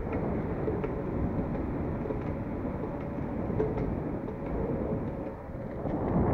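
Longboard wheels rolling on a smooth painted concrete floor: a steady rumble with a faint hum. It dips briefly near the end, then grows louder.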